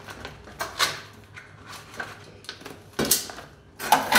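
Aluminium mess kit pans and spoons being handled on a wooden table: a few separate clatters and knocks, the loudest near the end with a brief metallic ring.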